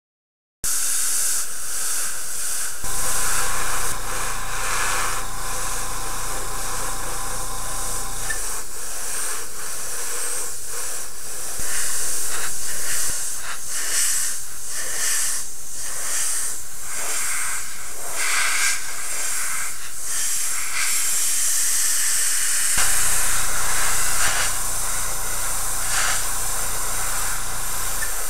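Aztek A470 airbrush hissing as it sprays weathering paint onto an HO model boxcar, the air flickering as the trigger is worked. A low hum comes in twice, for several seconds about three seconds in and briefly near the end.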